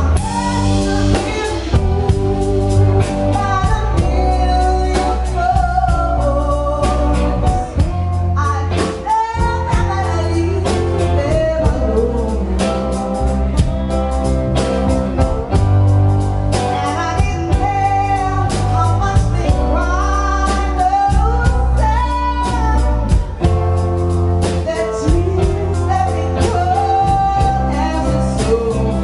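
Live band performing, a woman singing lead over electric bass, guitars and a drum kit, with a steady beat.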